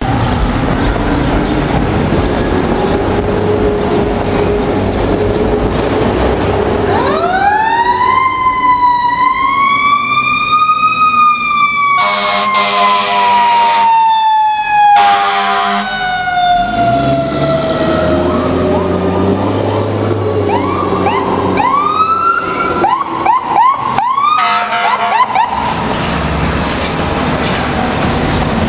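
Passing fire engine's siren winds up over a few seconds, then slowly falls away, with two long air-horn blasts about 12 and 15 seconds in. A second siren follows with quick yelping sweeps, over steady truck engine and traffic noise.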